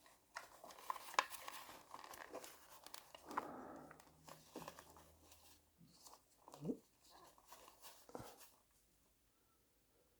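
Faint rustling and small scattered clicks of hands handling plastic connectors and wiring, with one brief squeak about two-thirds of the way in, falling quiet for the last second or so.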